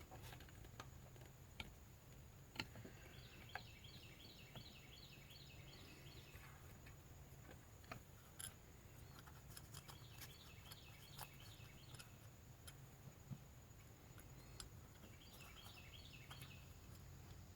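Mostly near silence with scattered small clicks and taps from hands working a wire connector onto a coolant temperature sensor. A bird chirps in quick runs of repeated high notes, three times.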